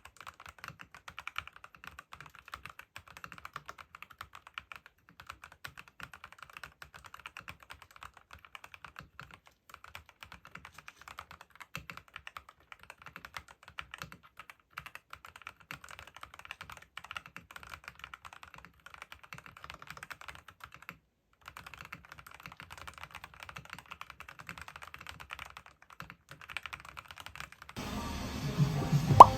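Typing on an SPM PL87A keyboard: a steady run of fast key clacks, with a brief pause about three quarters of the way through. Background music comes in near the end.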